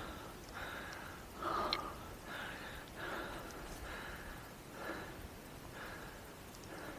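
A man breathing audibly, roughly one breath a second, while walking through snow.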